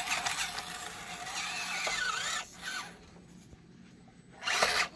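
Axial SCX24 micro crawlers' small electric motors and gearboxes whining, the pitch rising and falling with the throttle, dropping off about three seconds in and surging briefly again near the end.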